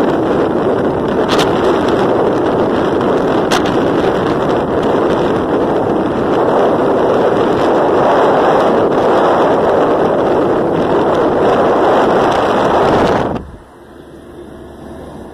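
Steady loud rush of wind and road noise on the microphone out the side of a moving car. It cuts off abruptly about thirteen seconds in, leaving the much quieter steady hum of the car's cabin.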